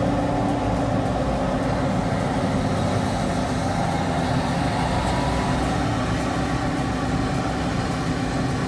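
Heavy logging vehicle's engine running hard with a steady, unchanging drone, working against deep mud.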